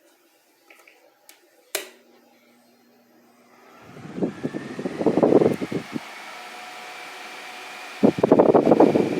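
A sharp click, then a Mondial Maxi Power six-blade table fan spinning up to a steady whoosh of air. Twice its airflow buffets the microphone with loud low rumbles.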